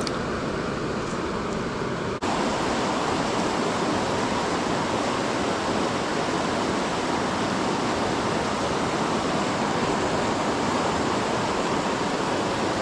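Shallow mountain river rushing over rocky riffles and small rapids: a steady, full wash of moving water. There is a brief break about two seconds in, after which the rush is slightly louder.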